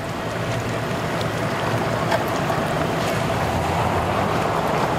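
Outboard motors on bass boats idling in slowly, a steady low hum with a noisy wash over it.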